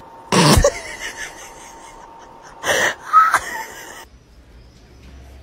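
Dog sneezing at a bare foot held to its nose: one sharp burst about half a second in, then two more close together near three seconds.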